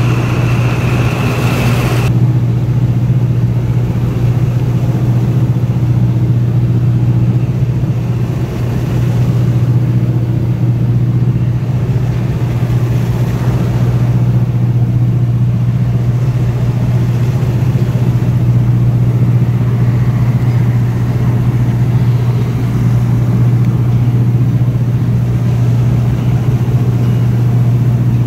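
Steady low drone of a boat's engine running, heard on board over wind and water noise. A higher hiss and thin whine layered on top cut off abruptly about two seconds in.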